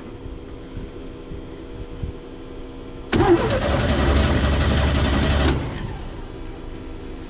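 The 1955 Chevrolet 6100 truck's inline-six engine is cranked on the starter about three seconds in, trying to start on a newly fitted fuel pump. The loud cranking lasts about two and a half seconds, then stops suddenly.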